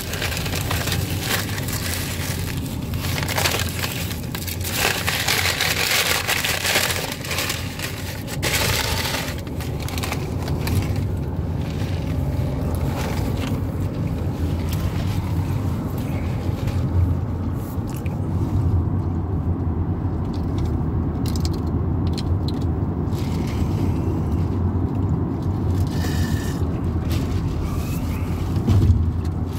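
A McDonald's paper takeout bag crinkles and rustles over a steady low car-cabin rumble, densely for the first nine seconds or so and only now and then after that.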